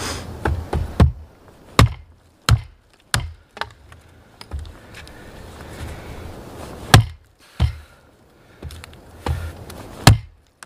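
Husqvarna carpenter's axe chopping a branch laid across a wooden stump: about a dozen sharp wooden chops at uneven intervals, the two hardest about seven and ten seconds in.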